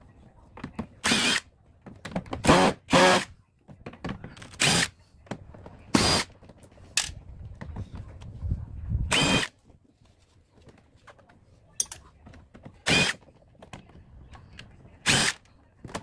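Cordless drill-driver run in about ten short bursts, backing out the screws that hold a plastic dehumidifier's back panel.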